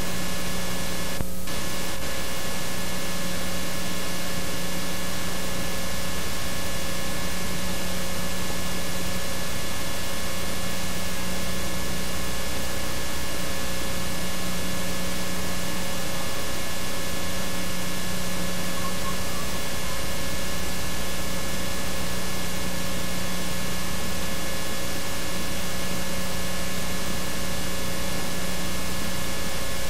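Steady hiss with a constant electrical hum and no other sound, cutting out for an instant about a second in: the noise floor of an analogue home-video tape with no live sound on it.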